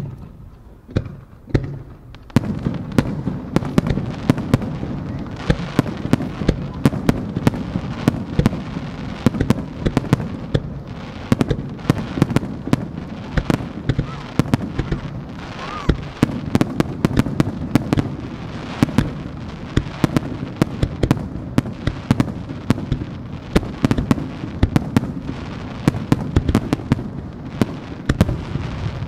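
A fireworks display of aerial shells launching and bursting. A sharp bang at the start and a few scattered reports give way, about two seconds in, to a dense continuous barrage of bangs over a heavy rumble.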